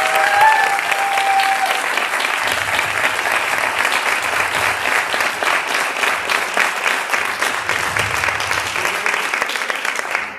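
Audience applauding, a dense steady clapping from many hands that stops right at the end.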